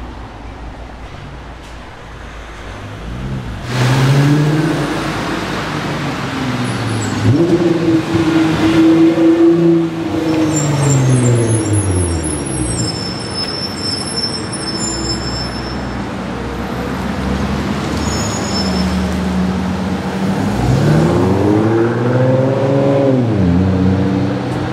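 Nissan GT-R R35 twin-turbo V6 engines accelerating, the exhaust note climbing and dropping back several times as the cars pull away.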